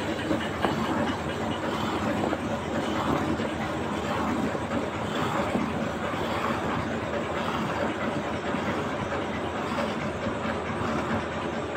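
Hand milking: thin squirts of milk from the teats streaming into a steel mug of frothy milk set inside a steel bucket, a steady run of frothy squirts.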